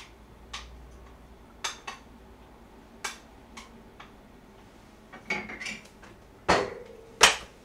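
Kitchen utensils and dishes clinking and knocking: a scatter of separate sharp clicks, sparse at first, with the two loudest near the end, one of them leaving a short ring.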